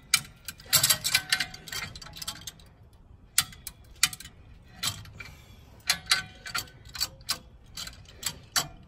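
Hand-cranked come-along ratchet clicking under load as it drags a Detroit Diesel bus engine back on its cradle: sharp, irregular clicks about one or two a second, some bunched together.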